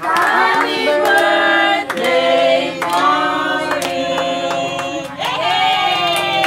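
A group of people singing together in held notes, with scattered hand claps.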